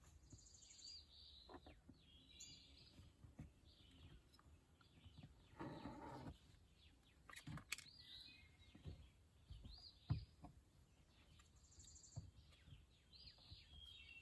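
Faint bird chirps, short arching notes repeated every second or two, over scattered light clicks and taps from hand work on a plastic door panel. The loudest is a sharp tap about ten seconds in, with a brief rustle around six seconds.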